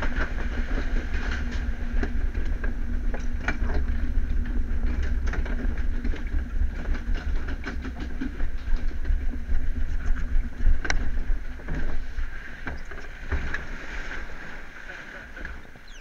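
Log flume boat travelling along its water trough: a steady rush of water with a low rumble, and scattered knocks and clicks, getting quieter near the end.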